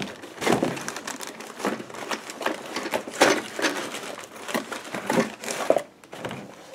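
Cardboard box and packaging rustling, scraping and crinkling as a boxed model train car is pulled out by hand; the irregular handling noises die down about six seconds in.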